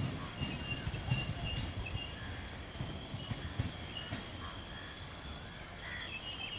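Passenger coaches of an express train rolling slowly past as it slows, the wheels knocking irregularly over rail joints, the knocks thinning out and fading after about four seconds. A faint high squeal runs above them.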